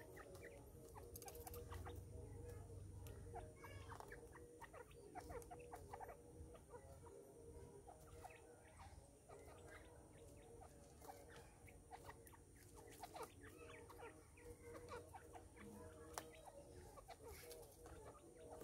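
Grey francolins giving faint, short clucking calls, scattered irregularly.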